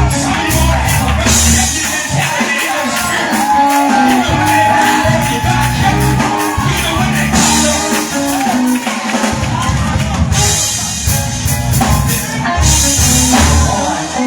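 Live church band music: a drum kit with cymbals keeping a steady beat over a low bass line, with some voices singing along.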